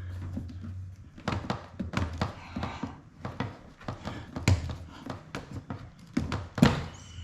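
Hands working tools and fuel-line parts: a run of irregular taps, clicks and knocks, the loudest about four and a half and six and a half seconds in, over a low hum in the first second.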